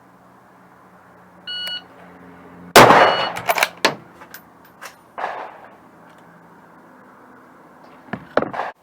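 A short electronic beep, then about a second later a single very loud rifle shot with a long ringing decay from a Ruger Scout bolt-action in .308, followed by sharp metallic clicks and clacks of the bolt being worked, with another burst of bolt clacks near the end.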